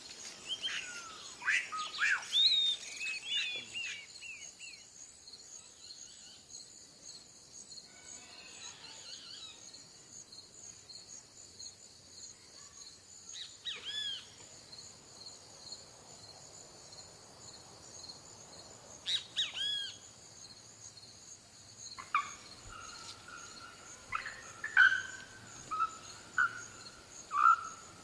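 Several birds calling: a flurry of quick down-slurred whistles at the start, a few single calls in the middle, and a run of repeated notes near the end. A steady high-pitched hum runs underneath throughout.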